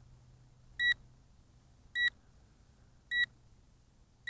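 Drone remote controller sounding a warning: short, high electronic beeps about once a second, evenly spaced. They signal that the controller has lost its link with the drone during return to home.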